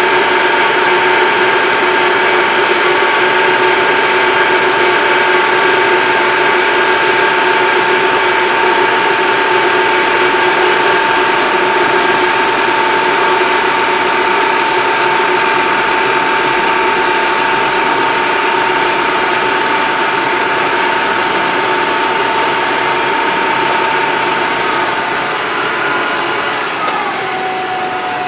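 Farm tractor's engine and transmission running at road speed, heard from inside the cab: a loud steady whine over the engine noise. Near the end the whine falls in pitch as the tractor slows.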